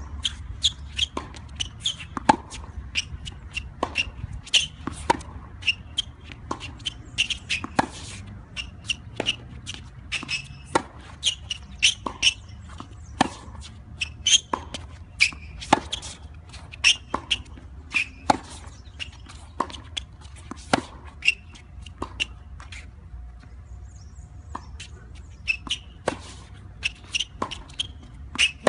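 Tennis rally on a hard court: a steady run of sharp pops, about two a second, from racket strings striking the ball and the ball bouncing. Some pops are loud and close, others fainter from the far end, over a low steady rumble.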